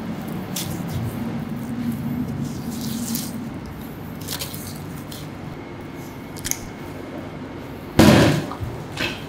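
Boning knife working through a side of beef on a stainless-steel table, with faint scrapes and clicks, then one loud thump about eight seconds in.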